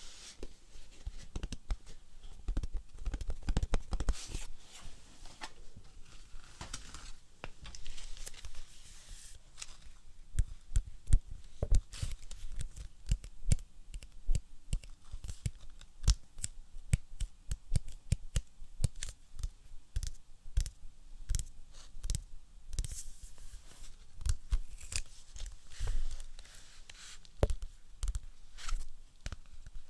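ASMR tapping on objects: quick, irregular taps in clusters, several a second. Through the first third they mix with a scratchy rustling.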